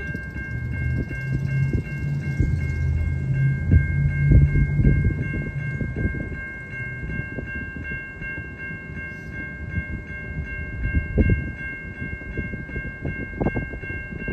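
Railroad crossing warning bell ringing steadily, about two strikes a second, sounding because a stopped freight train stands across the crossing. A low rumble with scattered thumps runs beneath, loudest in the first half.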